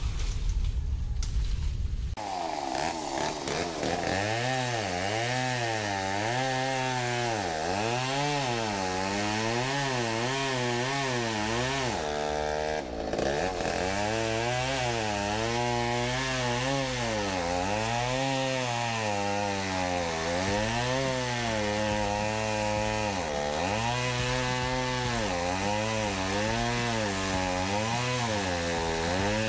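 Chainsaw cutting through a coconut palm trunk. It comes in about two seconds in, and its engine pitch rises and falls over and over as the chain bites and eases, with a brief drop-out about twelve seconds in.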